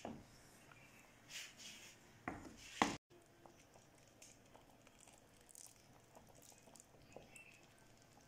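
A spatula stirring milky vermicelli in a metal pot, knocking and scraping against the pot a few times, the loudest knock just before the sound cuts off about three seconds in. After that only faint, scattered small ticks.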